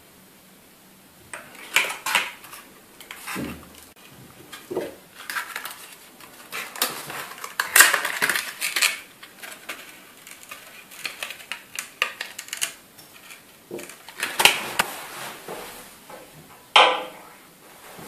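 Clear plastic clamshell packaging of RAM modules being handled and opened: an irregular run of crackling, clicking and clacking of stiff plastic, with one sharp click near the end.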